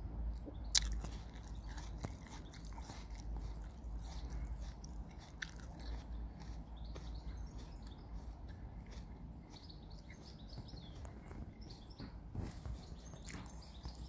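Garden ambience: a steady low rumble, scattered faint clicks with one sharp click just under a second in, and faint high bird chirps in the background.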